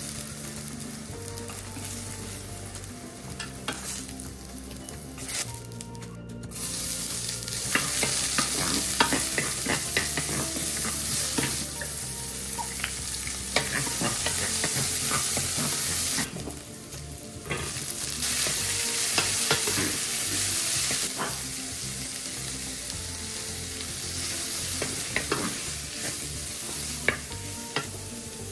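Food sizzling in hot oil in a frying pan while it is stirred and turned, with frequent clicks of a utensil against the pan. The sizzle drops away briefly twice.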